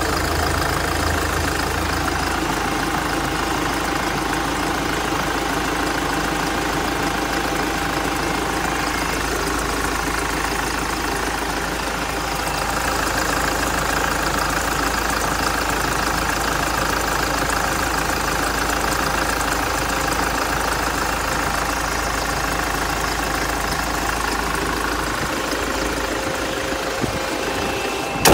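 Hyundai Terracan's 16-valve CRDi common-rail diesel engine idling steadily, heard close up in the open engine bay.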